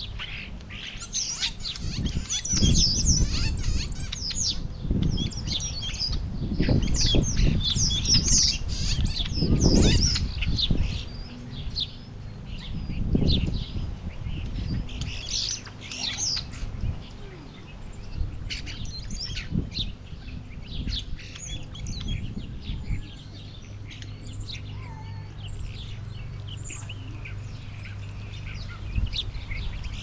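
Small songbirds at a backyard feeder chirping and twittering in quick overlapping calls, busiest in the first half and thinning out later, over low irregular rumbles and, in the last third, a steady low hum.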